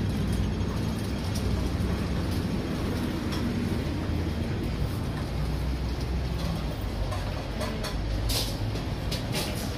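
Steady low rumble of street traffic, with a few short, sharp clatters near the end.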